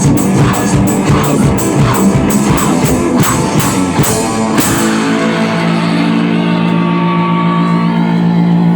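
Rock music with electric guitar and drum kit; about halfway through the drums stop and a held chord rings on.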